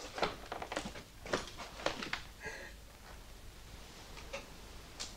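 Footsteps on a hard floor: about five soft steps, a little over half a second apart, in the first two seconds, followed by a brief faint squeak.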